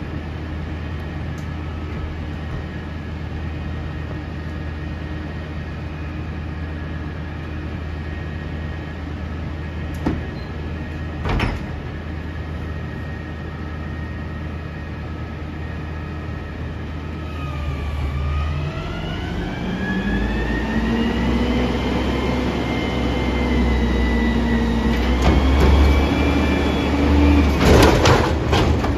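Peterbilt 320 front-loader garbage truck idling steadily, then a bit past halfway the engine revs up and holds high revs to drive the hydraulics as the forks lift the dumpster. Two sharp knocks around ten seconds in, and a run of loud metal clanks near the end as the container goes up.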